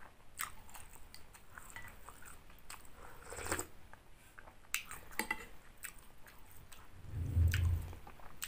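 Someone eating noodle soup: chewing, with scattered sharp clicks of a spoon and chopsticks against a ceramic bowl. Near the end comes a low hum lasting about a second, the loudest sound.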